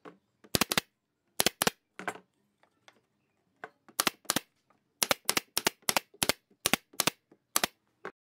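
Pneumatic nail gun firing nails into pine slats: about sixteen sharp shots, many in quick pairs, in short bursts with brief pauses between them.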